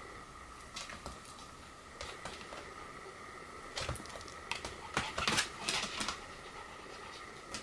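Pomeranian's claws clicking and scuffling on a hard floor during play, with a few scattered taps and then a dense flurry of quick clicks between about four and six seconds in, over a faint steady high-pitched whine.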